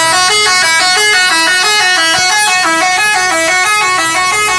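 Bus 'telolet' horn, a multi-tone musical air horn, playing a loud, fast tune of notes that step up and down several times a second.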